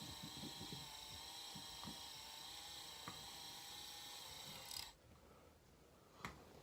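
A small electric motor whining steadily at several pitches, with a few soft clicks, cutting off abruptly about five seconds in; a single sharp click follows.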